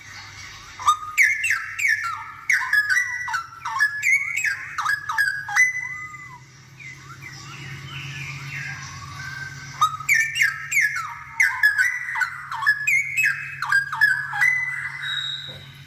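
Straw-headed bulbul (cucak rowo) singing in two loud bouts of rapid whistled phrases made of quick falling notes, with softer warbling between them. A steady low hum runs underneath.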